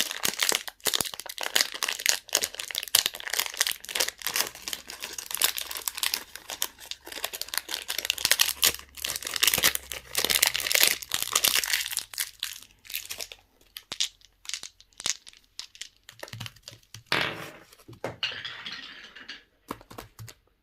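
Plastic candy wrappers being crinkled and torn open, a dense run of crinkling for the first two-thirds that thins to a few separate rustles near the end.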